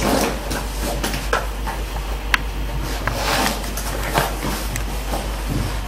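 Hands rummaging through a fabric bag of clothes: irregular rustling and scraping of cloth with a few sharp clicks, the sharpest about two seconds in, over a steady low hum.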